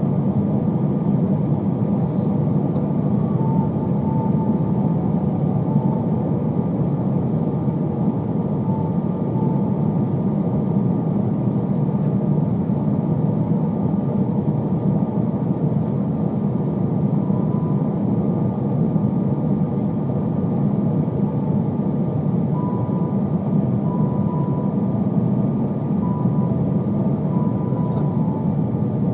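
Steady cabin noise of an Airbus A320 descending to land: engines and rushing air heard from a seat over the wing, with faint high tones coming and going.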